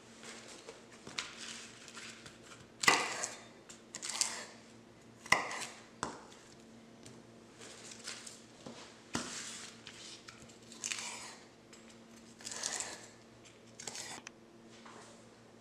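Chef's knife slicing through rolled collard green leaves on a bamboo cutting board: irregular crunching cuts and knocks of the blade on the board, the loudest about three and five seconds in, with leaves rustling as they are handled.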